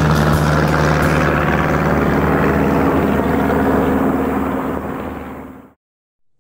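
Light single-engine propeller airplane droning steadily overhead, fading away over the last couple of seconds and then cut off to silence.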